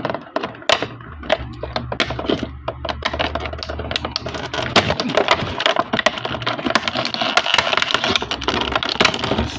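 Plastic toy packaging crackling and clicking as small plastic accessories are worked free of it, in a rapid irregular run that gets busier after the first few seconds.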